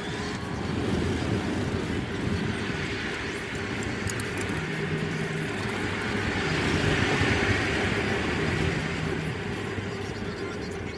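Cabin noise of a Tesla Model S 85D electric sedan under way on track: a steady rumble of tyres and wind with no engine note, swelling louder toward the middle and easing off near the end.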